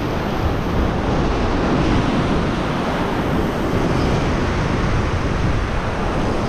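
Ocean surf surging and washing over a rock ledge, a steady loud rush of water, with wind rumbling on the microphone.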